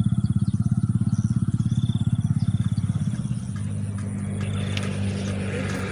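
Small engine running with a rapid, even putt-putt pulse that gives way to a steadier hum about three seconds in.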